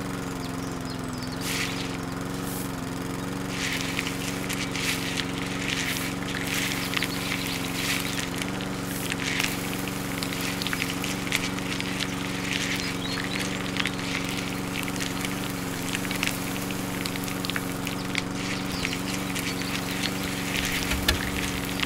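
Small electric motor of a miniature sieve machine running at a steady pitch, driving the wire-mesh screen back and forth through a crank wheel, with scattered rattling clicks of beans and sand on the mesh.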